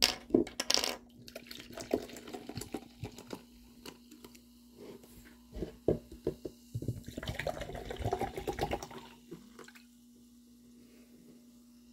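Carbonated soda being opened and poured: a burst of fizzing hiss at the start, scattered taps and clinks, then a few seconds of liquid pouring and fizzing that stops about nine seconds in.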